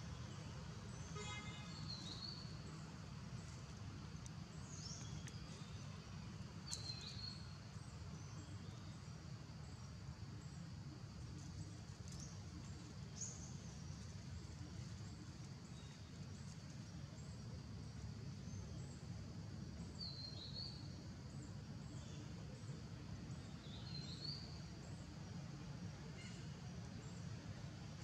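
Outdoor ambience: a steady low rumble with short, high chirps every few seconds.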